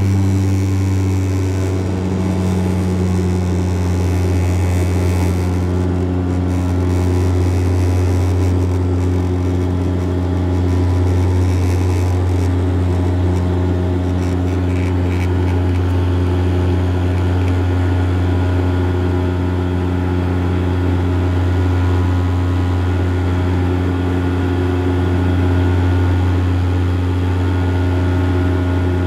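Steady low drone of a Bombardier Dash 8 Q400's Pratt & Whitney PW150A turboprop and six-bladed propeller at climb power, heard from inside the cabin.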